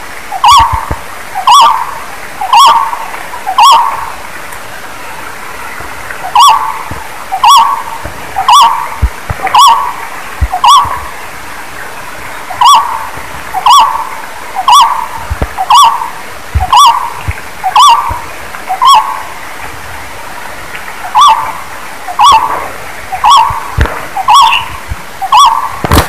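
Barbet calling: a short, hollow note repeated about once a second in runs of five to seven, with short pauses between the runs.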